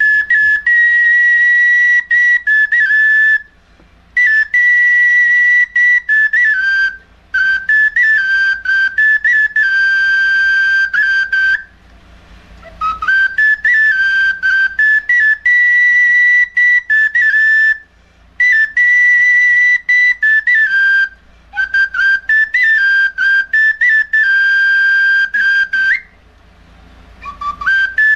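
Small red bansuri played solo: a high, clear melody of held notes and quick ornamental turns, in phrases broken by short breath pauses every few seconds.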